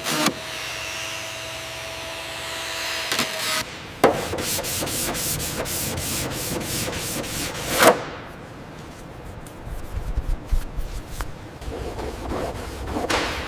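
Sanding on metal: rubbing, rasping strokes that come in a few short stretches with abrupt changes, quick and repeated in the middle section.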